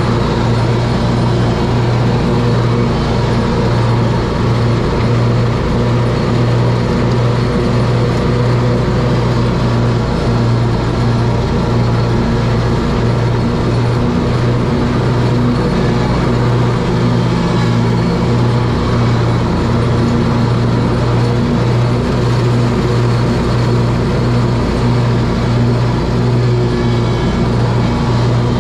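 Scag Tiger Cat zero-turn mower running steadily as it mows, its engine holding one even pitch.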